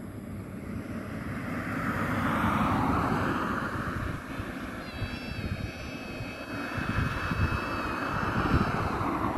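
Jet airliner on final approach, its engine noise swelling as it comes closer. A steady high-pitched whine sits on top from about five seconds in and fades out near the end, over an uneven low rumble.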